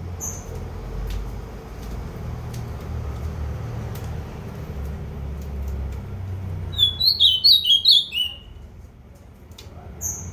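A bird calling: a quick run of about seven sharp, high notes about seven seconds in, with a single short high chirp near the start and another near the end. A low rumble of background noise runs under the first part and fades after the calls.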